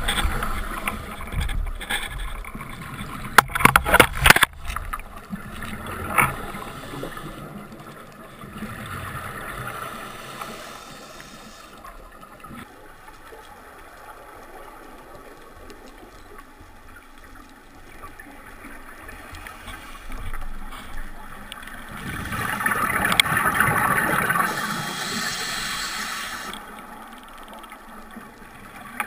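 Underwater sound of a scuba diver breathing through a regulator, with a louder rush of exhaled bubbles about three-quarters of the way through. A quick cluster of sharp clicks and knocks comes a few seconds in.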